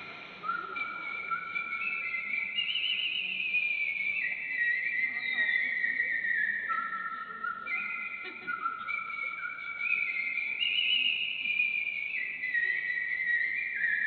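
Artistic whistling: a slow melody of long held notes with vibrato, sliding between pitches, with no accompaniment.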